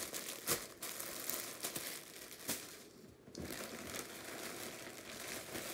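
Plastic bag packaging crinkling and rustling as a bagged skein of yarn is handled, with many small sharp crackles and a brief lull about three seconds in.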